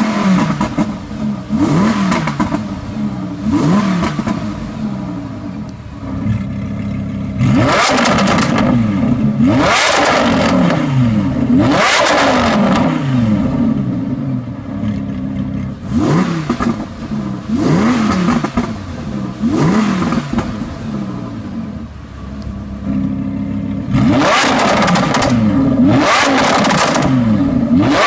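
Lamborghini Huracán LP610-4's 5.2-litre V10 free-revving in place through a Power Craft aftermarket exhaust. The throttle is blipped again and again, the pitch rising and falling back about every two seconds, with a few louder, longer-held revs.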